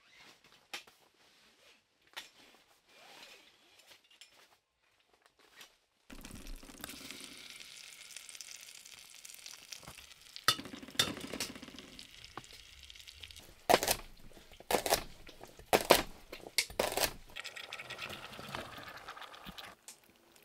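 Food cooking in a metal pot: quiet for the first few seconds, then a steady sizzle with sharp clinks and knocks of a utensil against the pot, loudest in a cluster past the middle.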